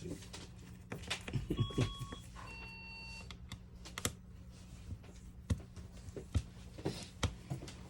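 Scattered light clicks and taps of small tools and phone parts being handled on a repair bench, over a faint steady low hum. About two seconds in, a short two-note electronic chime sounds, the second note lower than the first.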